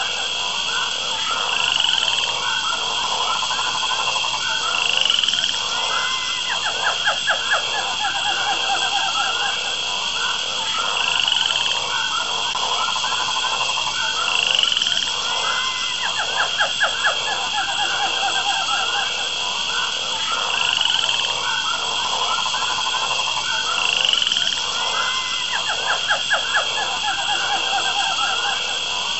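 A frog and insect chorus: a steady high-pitched insect drone with a short rising chirp every few seconds, over croaking frogs and bursts of quick pulsed calls. The same stretch repeats about every ten seconds, like a looped nature ambience track.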